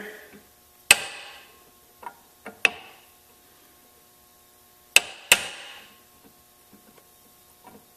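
Light hammer taps on a metal driver, seating a new bearing into a John Deere 318 mower-deck spindle hub. About six sharp metallic taps, each with a short ring: one about a second in, three lighter ones around two seconds, and a pair about five seconds in.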